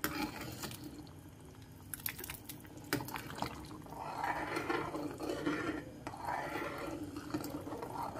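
A metal ladle stirring a brothy kaudi soup in a kadai: a few sharp clinks against the pan, then the liquid sloshing in repeated swells from about halfway through.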